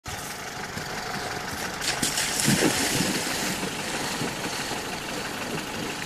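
Niva off-roader's engine idling steadily, with a louder rush of hiss from about two to three and a half seconds in.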